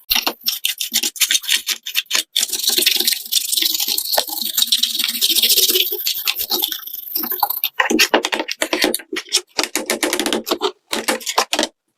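A brush scrubbing plastic keycaps in soapy water, in quick repeated strokes, with a denser stretch of steady scrubbing in the middle.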